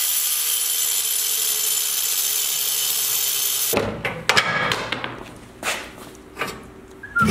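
Handheld angle grinder with a thin cut-off wheel cutting through a steel hitch-receiver locking pin: a steady high whine that stops abruptly about three and a half seconds in. A few knocks and clicks follow.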